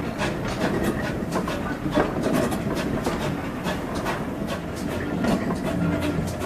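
Heritage railway train running along the line: a steady rumble of the carriage with irregular sharp clicks of the wheels over rail joints.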